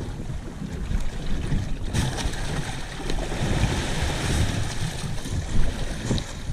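Water sloshing and slapping against the hull of a boat rocking at sea, with wind rumbling on the microphone. A sharper knock about two seconds in.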